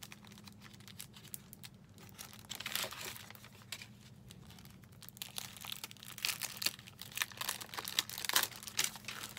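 A clear plastic packet of paper ephemera crinkling and rustling as it is handled and sheets are slid out, in irregular crackles that pick up about two and a half seconds in and again over the last few seconds.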